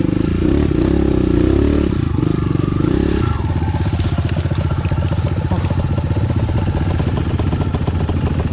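Enduro motorcycle engine running, working harder for the first three seconds or so, then settling to a lower, steadier run.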